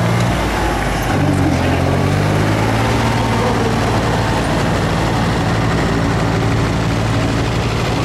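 Tractor engine running, dipping in pitch and picking up again about a second in, then holding steady.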